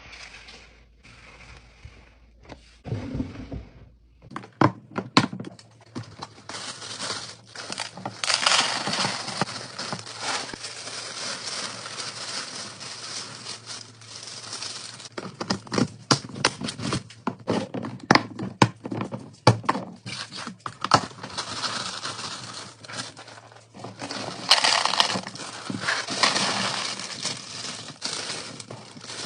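Groceries and containers being handled and put away: a run of sharp clicks and knocks, with stretches of crinkling plastic packaging.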